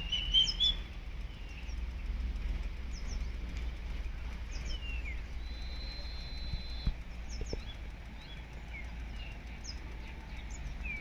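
Wild birds calling outdoors: scattered short chirps and quick rising and falling whistles, with a brief held high note partway through, over a steady low rumble.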